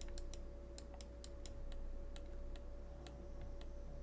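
Computer mouse buttons clicking in irregular runs, about three or four sharp clicks a second, over a steady electrical hum.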